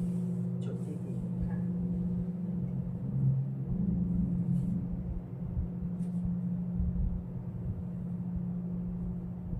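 Large singing bowls ringing on in a steady blend of low tones over a low rumble.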